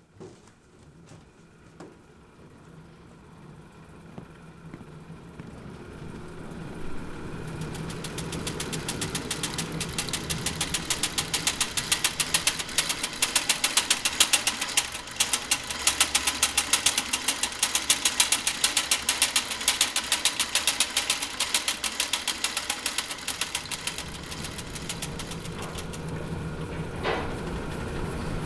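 Early-twentieth-century iron-and-wood fabric-printing machinery running with a rapid, even mechanical clatter. It builds up from faint about six seconds in, stays loud through the middle and eases near the end, with a single sharper click shortly before the end.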